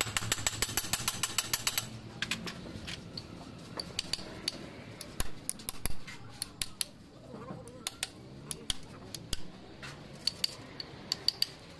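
Hammer tapping a hand-held steel punch against a fitting on the front of a truck diesel engine block: a quick, even run of light metallic taps for about two seconds, then slower, scattered single taps.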